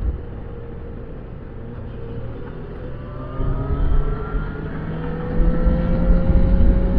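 Yamaha XJ6 Diversion F's 600 cc inline-four with its stock exhaust, heard from the moving bike. It runs softly at first, then from about three seconds in its pitch slowly rises as it accelerates, growing louder about five seconds in.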